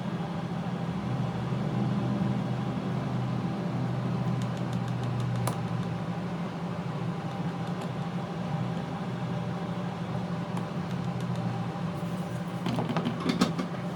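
Steady low hum, with a few faint clicks and a short run of small sharp taps near the end.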